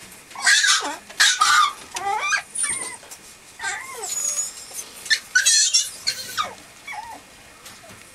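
Black-and-tan mame shiba puppy whining and yelping in a series of short, high, sliding calls, a few of them thin high squeaks.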